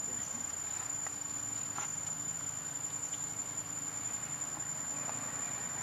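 Insects singing in one steady, unbroken high-pitched drone, with a few faint ticks.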